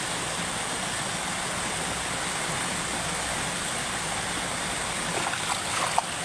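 Steady rush of flowing stream water, with a few small splashes about five seconds in and a sharp splash at the water's surface near the end.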